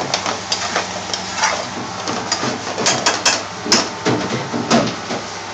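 Large metal spoon knocking and scraping against a metal frying pan while a thick curry sauce is stirred as it simmers down, giving irregular clinks and scrapes, sharpest a few seconds in, over a steady kitchen hum.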